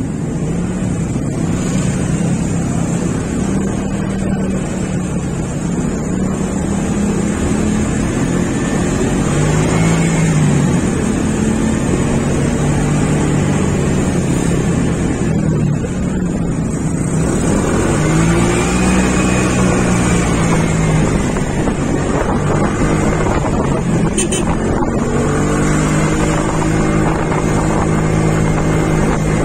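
Motorcycle engine running while riding, its pitch swelling and falling a couple of times with the throttle and then holding steadier near the end, over a steady rush of wind and road noise.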